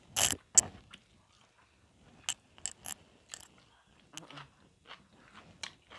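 Biting into a broccoli floret and chewing it close to a clip-on microphone: two sharp crunches in the first second, then quieter, irregular chewing clicks.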